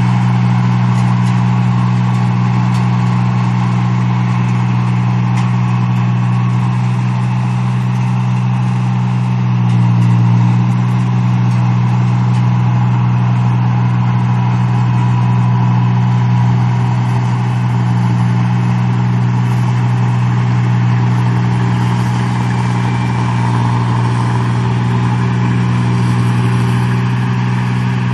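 The engine of a paddy machine running steadily at a constant speed, with a brief swell in loudness about ten seconds in.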